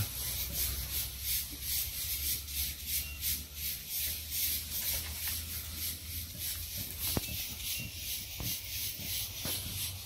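Cicadas buzzing in a steady pulsing chorus, about four to five pulses a second, over a low rumble, with a few faint clicks in the second half.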